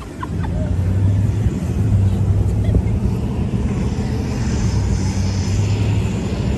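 Inside a moving car's cabin: a steady low engine and drivetrain hum with road and tyre noise, picking up a higher hiss partway through.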